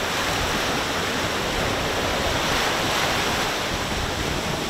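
Small ocean waves washing up over shallow sand in a steady rush of surf, swelling a little near the middle.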